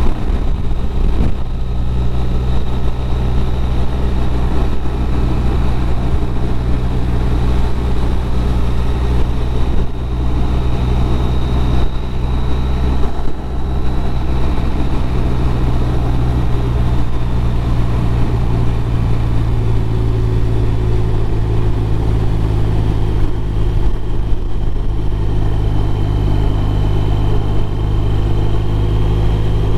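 BMW R1200RT's flat-twin boxer engine running steadily at cruising speed, with wind and road noise over it. It eases off briefly about thirteen seconds in.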